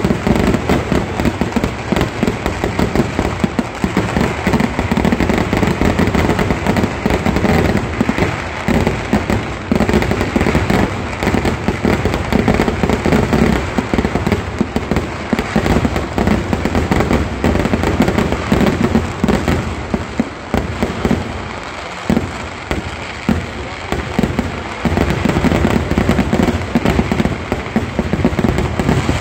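A dense, continuous fireworks barrage: firecrackers and aerial shells going off in rapid, overlapping bangs and crackles. It thins briefly a little past the middle, then picks up again.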